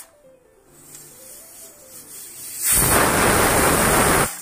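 Pressure cooker whistle: steam forces up the weight valve on the aluminium lid and rushes out in a loud hiss for about a second and a half. It starts a little under three seconds in and cuts off sharply. It marks the cooker reaching pressure, one of the four to five whistles counted to cook the mutton.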